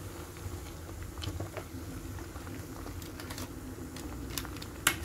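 Aluminium pot of spinach and corn soup bubbling at the boil, with faint scattered ticks; near the end a ladle stirs in the pot and clinks sharply once against its side.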